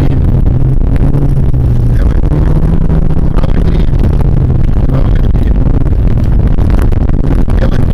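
VAZ 2114 car driving hard on a dirt track, heard from inside the cabin: the engine's steady note under load, whose pitch breaks off and comes back slightly higher a couple of times, over a heavy rumble of tyres and gravel.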